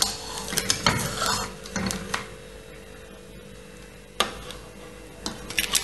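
Metal spatula scraping and clicking against the appam pan as a cooked egg appam is lifted out, with a cluster of clicks in the first two seconds, then a single clink about four seconds in and a few light clinks near the end as it is set on a plate.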